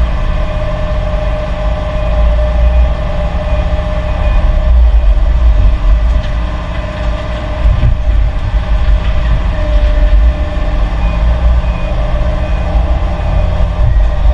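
Heavy diesel construction machinery running, with a deep steady rumble and a steady whine over it.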